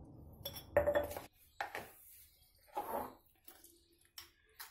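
Metal spoon clinking and scraping against a glass jar as chunky red chilli pickle is spooned and pressed into it: several separate knocks, the loudest about a second in.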